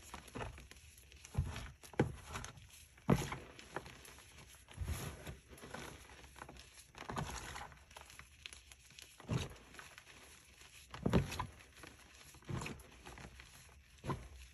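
Hands squeezing and crumbling handfuls of dyed gym chalk: soft, powdery crunches that come in irregular squeezes about every one to two seconds.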